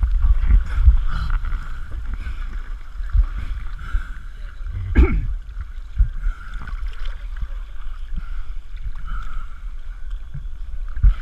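Sea water sloshing and slapping against a camera bobbing at the surface, a heavy uneven rumble with one louder splash about halfway through.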